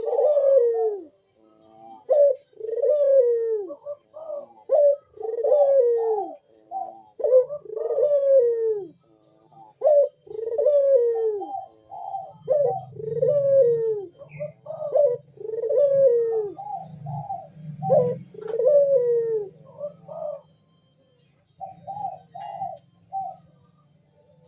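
Barbary dove (burung puter) cooing over and over in a repeated rolling call, each phrase a string of rising-and-falling coos. The phrases grow shorter and quieter near the end, and a low hum sits under the calls from about halfway through.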